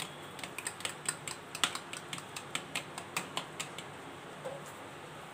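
A quick, irregular run of light, sharp clicks, about three or four a second, that stops a little past halfway through, leaving a faint steady background.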